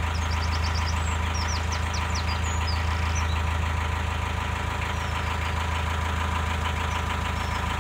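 A narrowboat's diesel engine runs steadily at cruising speed with a constant low drone. A small bird chirps in quick runs about a second in and again near three seconds.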